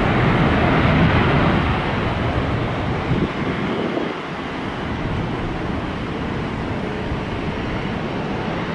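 Jet engines of a Boeing 787 Dreamliner running as the airliner rolls along the runway: a steady rushing noise, loudest in the first couple of seconds and easing a little about four seconds in.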